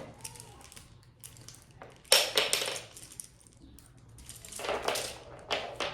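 Small hard plastic toy train pieces clicking and clattering as they are handled, with a sharp clack about two seconds in and a few more toward the end.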